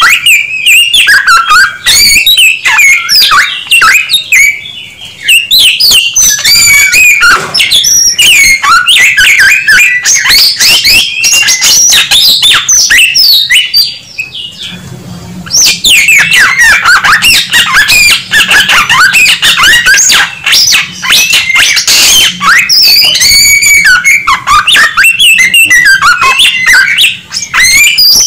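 Samyong songbird singing loudly and close up: a fast, varied run of chirps, trills and whistled notes, with a short pause about halfway through.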